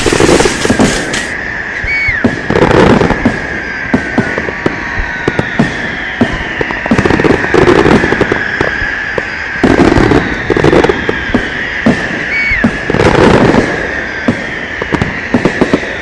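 Firecrackers and fireworks going off: dense crackling pops, with heavier bangs every second or two, over a steady high whistle.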